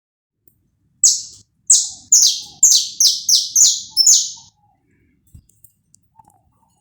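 Saffron finch singing a quick run of about seven loud, harsh notes, each sliding downward, over three or four seconds. The run then breaks off into a pause.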